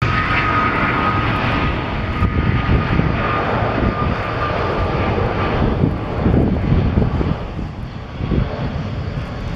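Boeing 777-200's twin jet engines at take-off power, a loud continuous rumble. A steady whine sits over it and fades out about halfway through.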